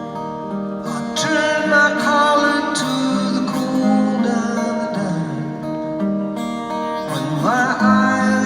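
Live folk song played on acoustic guitar, with a male voice singing over it.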